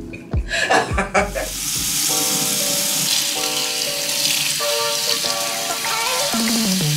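Background music with a melody of held notes over a loud, steady hiss that starts about a second in.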